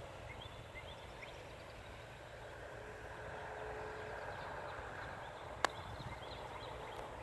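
Faint outdoor ambience: a steady distant hum with a few small bird chirps, and a single sharp click about five and a half seconds in.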